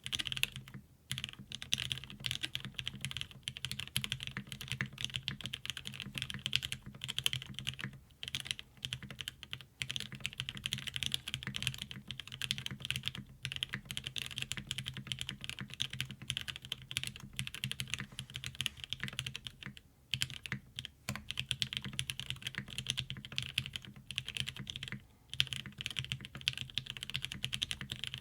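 Continuous fast typing on a custom Tsukuyomi mechanical keyboard with an FR4 half plate, lubed and filmed OA switches, Durock stabilizers and GMK keycaps: a dense stream of keystroke clacks with a few short pauses. A low steady hum runs underneath.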